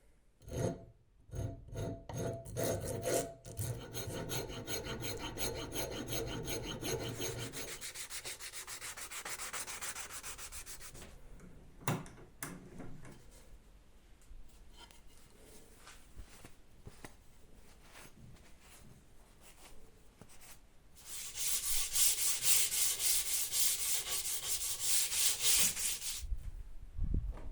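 Wood being abraded by hand strokes on a wooden axe handle. A run of rubbing strokes comes first, then sparser, quieter strokes with a sharp knock, and near the end a louder, brighter spell of fast scraping strokes.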